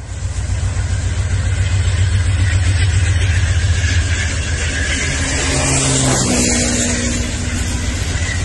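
CSX diesel freight locomotives passing close under power, a loud steady engine rumble mixed with rail noise, starting abruptly.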